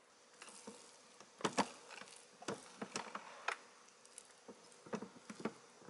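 Plastic rice paddle stirring freshly cooked rice with beans and corn in an electric rice cooker's inner pot: a scatter of short, irregular clicks and scrapes as the paddle knocks against the pot.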